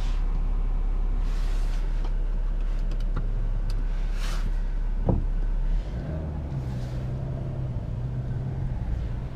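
BMW X4 30d's three-litre straight-six turbodiesel heard from inside the cabin, idling with a steady low drone and a few light clicks. About six seconds in the engine note changes as the car moves off at low speed.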